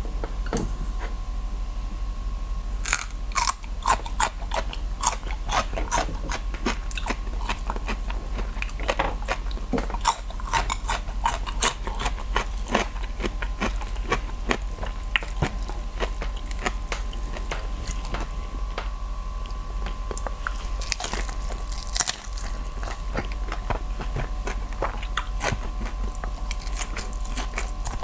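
Close-miked eating sounds: crisp crunching and chewing of lettuce wraps of grilled meat, a run of many small sharp clicks and crackles that starts about three seconds in.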